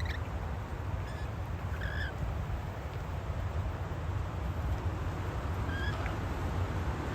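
A few short, high chirps from parrots, spaced a second or more apart, over a steady low rumble of wind on the microphone.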